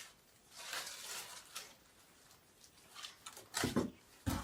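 Rustling of packing material, paper and plastic wrap, as chimney parts are handled and unpacked, with a few short louder sounds near the end.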